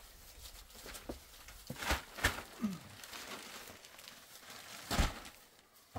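A few short knocks from objects being handled, with faint rustling between them; the loudest knock comes about five seconds in.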